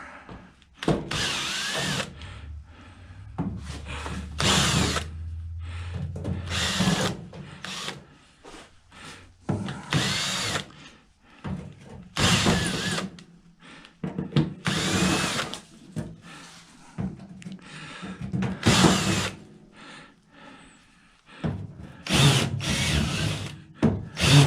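Cordless drill running in about a dozen short bursts, its motor pitch rising and falling with each squeeze of the trigger, as screws are backed out of an old microwave oven's casing.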